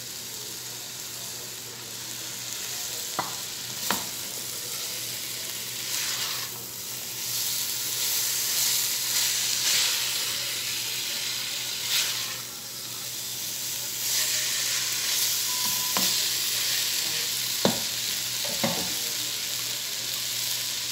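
A slotted spatula stirs cooked chicken into stir-fried carrots and green capsicum in a pan, over a steady sizzle that grows louder as the food is turned. The spatula knocks against the pan several times.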